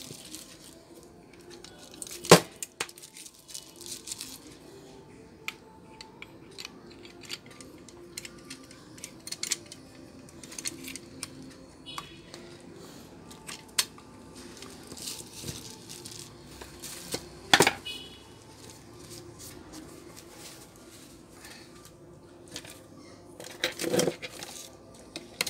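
Scattered clicks, taps and knocks of stand fan motor parts being handled and fitted back together during reassembly. Louder knocks come about two seconds in, about two-thirds of the way through and near the end.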